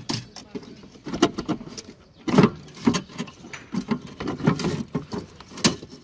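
Irregular clicks, knocks and rattles of hands pressing and shifting a car's windscreen wiper motor and its linkage under the cowl panel.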